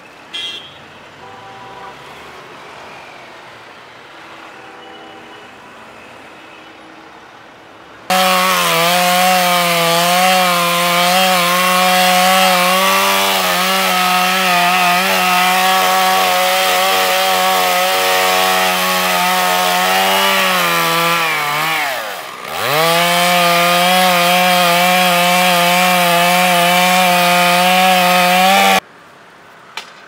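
Two-stroke chainsaw running at full throttle as it cuts into a tree trunk, a steady high engine note. It starts suddenly about eight seconds in, and after a softer stretch of outdoor background sound. Near two-thirds of the way through the engine speed drops sharply for a moment and recovers, and the saw stops abruptly near the end.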